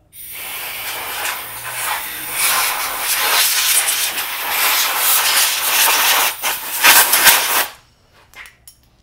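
Compressed air blown in a long, loud hiss to clear dust out of a CNC control board, stopping sharply about three quarters of the way through, with a few short, louder blasts just before it stops.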